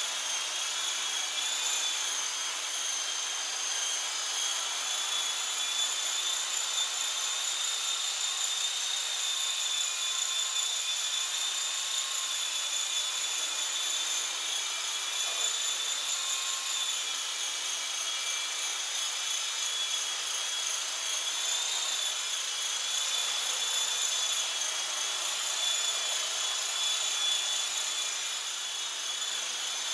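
Esky coaxial electric RC model helicopter hovering and flying, its electric motors and rotors giving a steady high-pitched whine over a rotor whoosh. The pitch wavers slightly now and then as the pilot adjusts the throttle.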